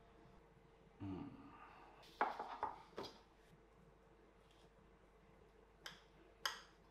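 Knife and fork clinking against a ceramic plate while a fondant potato is cut: a quick cluster of clatters about two seconds in, then two light clicks near the end as the knife reaches the plate.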